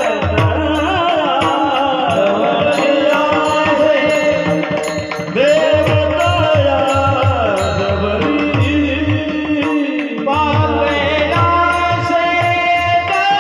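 Warkari kirtan devotional singing: a voice holds long, ornamented notes that glide up and down, over a repeating drum beat and small hand cymbals ticking in time.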